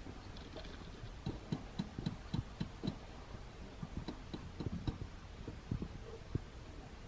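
Mechanical alarm clock ticking at about four ticks a second; the ticks fade in and out. Irregular soft low thumps sound underneath.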